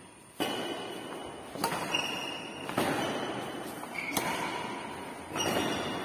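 Badminton rally: racket strings hit the shuttlecock five times, about once every second and a quarter. Each sharp hit echoes in the large bare hall.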